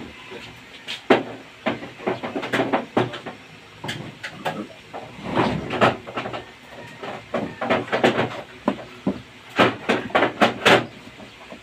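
Irregular sharp clicks and clattering knocks, some coming in quick clusters of several strokes, over a low steady background.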